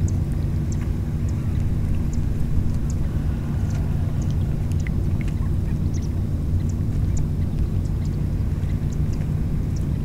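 Steady low mechanical drone, like a distant engine, running unbroken, with faint, very short high-pitched chirps scattered irregularly over it.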